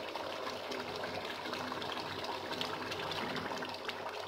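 Beef karahi gravy bubbling and sizzling in an aluminium karahi over a high flame: a steady hiss scattered with many small pops and crackles.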